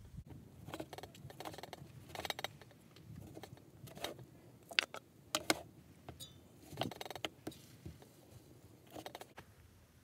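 Kitchen knife slicing tomatoes on a round wooden cutting board, the blade knocking on the wood in a series of sharp taps at uneven intervals.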